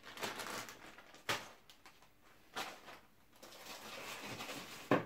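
Parts and plastic packaging being handled: a soft rustling that comes and goes, with three short sharp clicks or knocks.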